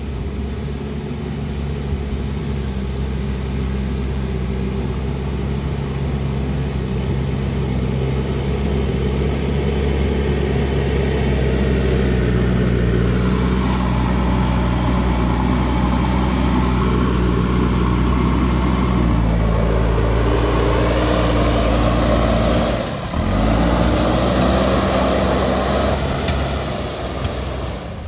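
Backhoe loader's diesel engine running steadily under work. It grows louder with added higher-pitched working noise from about halfway through, drops briefly near the end, then picks up again.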